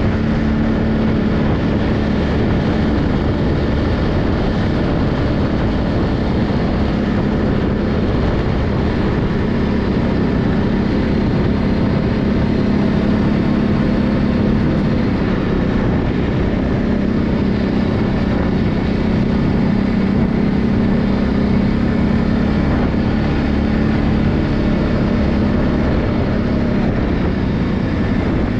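ATV engine running steadily while riding, its drone holding near one pitch with small rises and falls, over a continuous rush of noise.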